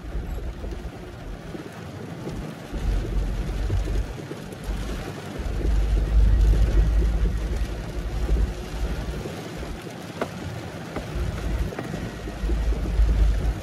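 Tofaş car driving in heavy rain, heard from inside the cabin: the engine's low rumble swells and eases several times over a steady hiss of rain and road noise.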